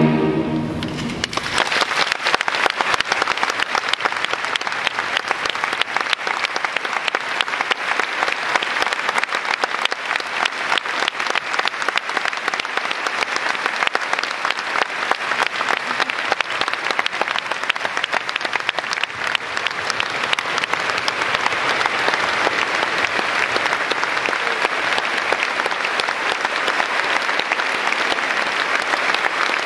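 The last held chord of a boys' choir ends about a second in, and a large audience breaks into steady applause.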